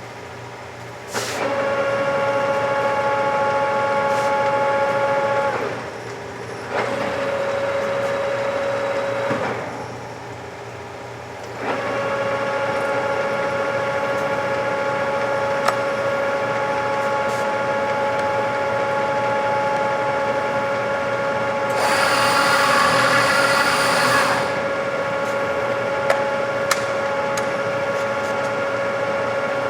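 Stanko ZM50 lathe running with a steady whine, switched off and restarted twice in the first twelve seconds, then running on. About two-thirds of the way through there is a louder, noisier stretch of two to three seconds, with a few sharp clicks here and there.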